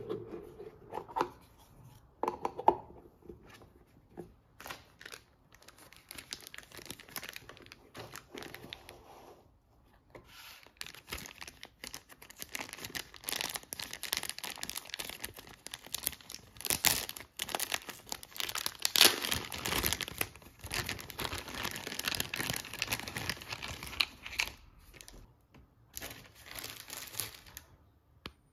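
Packaging being crinkled and torn open by hand: a few separate crackles and clicks at first, then from about ten seconds in a long stretch of dense crinkling and tearing.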